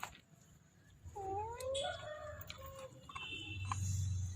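A pet's drawn-out call, about a second and a half long, whose pitch rises and then falls, followed by a low rumble near the end.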